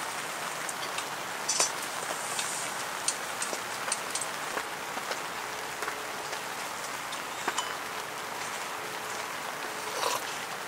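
Rain falling on the tent fabric: a steady hiss with scattered louder drops striking now and then.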